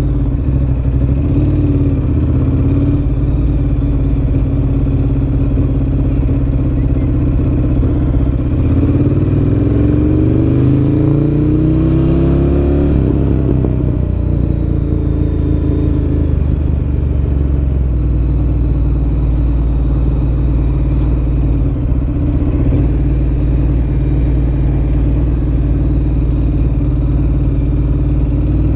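Ducati Monster 1100 EVO's air-cooled L-twin engine running through a Termignoni exhaust while being ridden. Its pitch rises as it accelerates, from about eight to thirteen seconds in, then falls back and runs steady.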